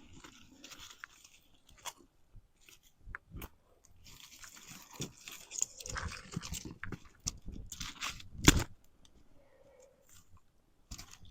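Dry sticks and kindling crackling and snapping in a small campfire as it is fed and catches, the crackle thickening partway through, with a sharp snap at about eight and a half seconds.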